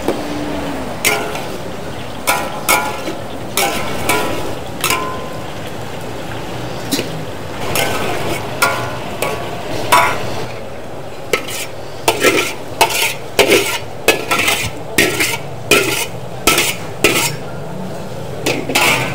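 Stir-frying in a wok: a metal spatula clanks and scrapes against the pan over a steady sizzle of frying food. The strikes are irregular at first, then come faster and louder in the second half, about two a second.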